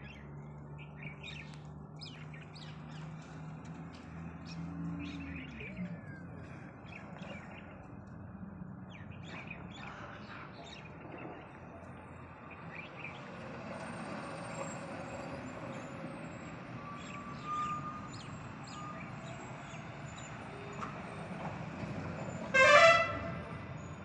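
Street ambience with birds chirping and a vehicle engine running, its hum rising in pitch and fading about five seconds in. Near the end a vehicle horn gives one short, loud toot.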